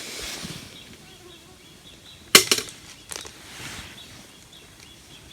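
One sharp clack a little over two seconds in, followed by two lighter knocks within the next second.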